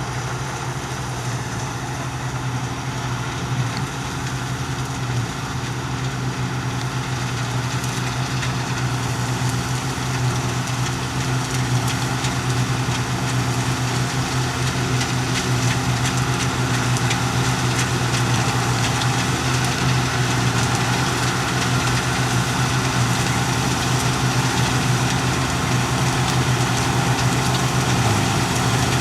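Diesel engine of large farm harvest machinery running steadily, growing gradually louder.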